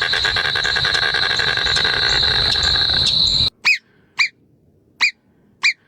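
A steady, high, rapidly pulsing insect trill that cuts off abruptly about three and a half seconds in, followed by four short high chirps about half a second to a second apart.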